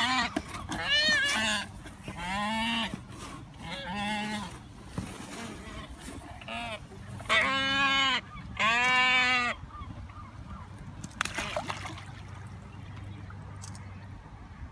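A waterbird calling: about six loud calls, each under a second long and arching up then down in pitch, the two loudest and longest about halfway through; after that they stop.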